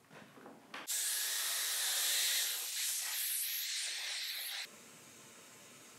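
Compressed-air blow gun on a coiled air hose blowing off an oak tabletop. A loud, steady hiss starts suddenly about a second in and cuts off sharply near five seconds, after a few faint handling knocks.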